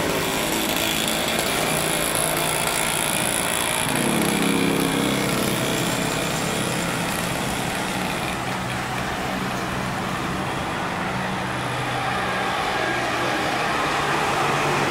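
Steady road traffic running along a city street, with one vehicle's engine coming in louder about four seconds in and holding for several seconds.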